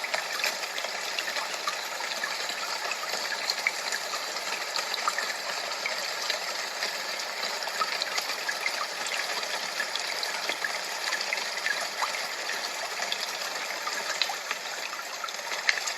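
Steady rushing water with small splashes and droplets flicking through it irregularly, and no deep rumble.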